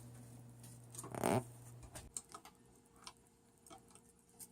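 Scattered light clicks and taps, with a louder brief scuff about a second in: handling noise while reaching up to a ceiling smoke detector.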